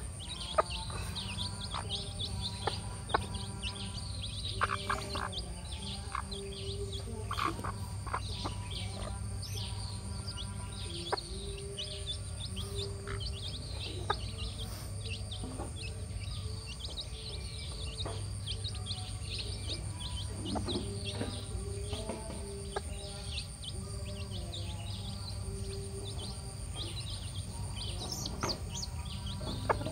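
Chicks peeping constantly in short, high chirps, while a hen makes low, drawn-out clucks every few seconds as she feeds them. A few sharp clicks are also heard.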